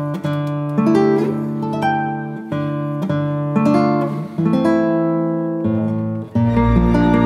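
Background music: an acoustic guitar plays a melody of plucked notes. About six seconds in, a fuller and deeper accompaniment joins.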